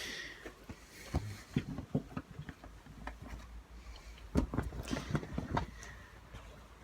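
Scattered light clicks and knocks of objects being handled, with a brief hiss right at the start and a busier run of knocks a little past the middle.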